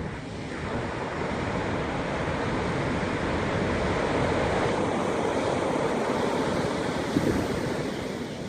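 Sea surf washing against a columnar-jointed rock coast: one long surge of breaking water that builds, peaks mid-way and eases off near the end, with wind buffeting the microphone and a brief thump near the end.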